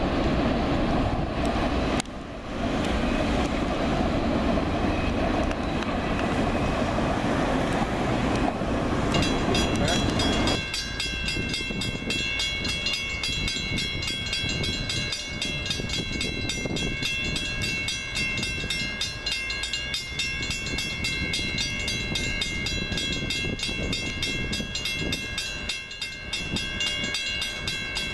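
Freight cars rolling past on the rails, a steady rumble. About ten seconds in this gives way to an electronic grade-crossing bell ringing, a rapid, even ding with steady high tones.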